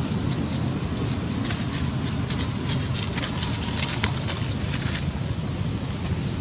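Steady outdoor background noise: a low rumble under a continuous high, even hiss, with a few faint clicks.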